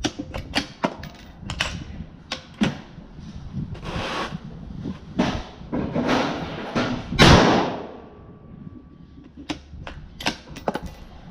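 Metallic clacks and clicks of a Bison MRX .223 AR-style rifle's action being worked by hand: charging handle racked and the bolt snapping home, with a flurry of clicks near the end. One louder bang about seven seconds in. The clicks go with the rifle's repeated misfires and soft strikes, which its owner puts down to a faulty rifle.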